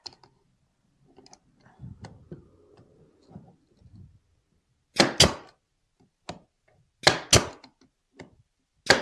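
Pneumatic nail gun firing three nails into a glued 2x4 mitre joint, about two seconds apart, each shot a sharp double crack. Faint handling of the wooden pieces comes before the first shot.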